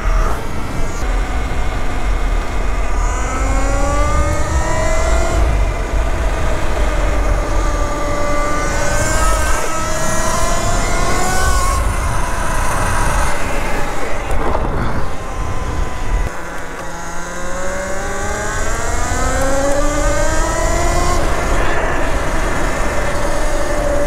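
Electric motor whine of a Talaria Sting electric dirt bike with a BAC8000 controller, rising in pitch as the bike accelerates, easing off in the middle, then rising again with a second acceleration. Wind rumbles over the microphone along with tyre noise on the asphalt.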